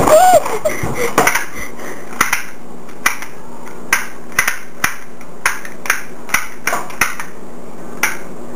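A run of sharp clicks and light knocks, irregular at about two a second, over a steady low hum.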